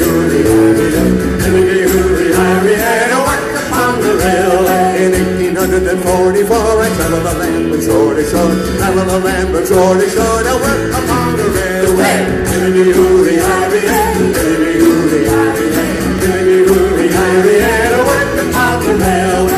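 Live acoustic folk band playing an upbeat Irish-American folk song: strummed acoustic guitars, bass and percussion keeping a steady beat, and voices singing the melody.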